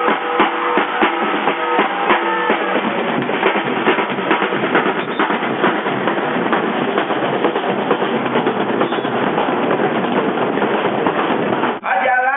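Drums beating in a steady rhythm, about two strokes a second, over a dense wash of sound, with some held melodic notes over them at first. It cuts off abruptly near the end.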